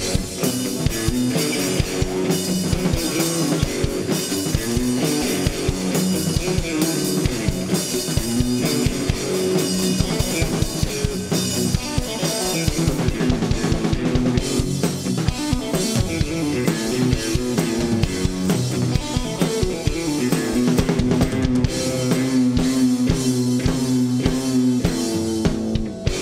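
Live rock played by a duo: a Stratocaster-style electric guitar through an amp head, with a full drum kit keeping a steady beat. It is an instrumental passage with no singing, and the band stops together at the very end as the song finishes.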